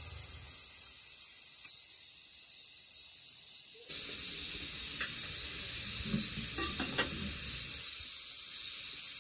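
Steady hiss of food cooking over heat. The sound changes abruptly about four seconds in, and a few faint light knocks come in the second half.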